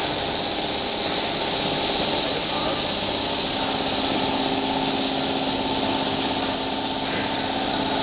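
EPE foam film coating machine running steadily, its rollers turning the embossed aluminium-film and foam web, giving an even hiss with several steady hum tones.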